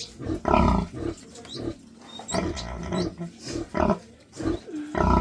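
Sow and piglets grunting: a string of short grunts about every half second to second, with a few thin high squeaks from the piglets.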